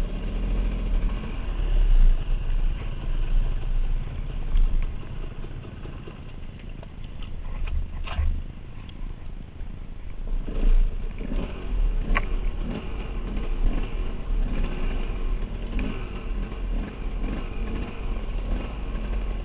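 KTM dirt bike engine running and rising and falling with the throttle while riding down a rocky trail, over a heavy low rumble, with a couple of sharp knocks about eight and twelve seconds in.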